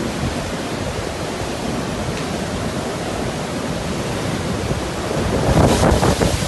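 Typhoon wind: a steady rushing noise, with a louder gust about five and a half seconds in.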